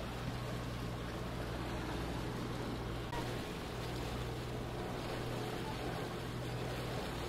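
Steady low hum of an idling boat motor under an even wash of wind and water noise.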